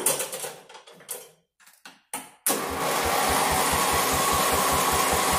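A few clicks and knocks of handling, then about halfway through the lawn tractor's 12-horsepower Craftsman engine starts at once and runs steadily with a fast, even low pulse.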